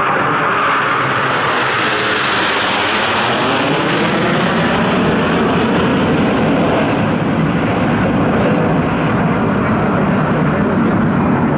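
Jet noise from a formation of Aermacchi MB-339 PAN trainers, each with a Rolls-Royce Viper turbojet, flying overhead. It is a loud continuous rush that grows brighter a couple of seconds in and then drops lower in pitch as the jets pass.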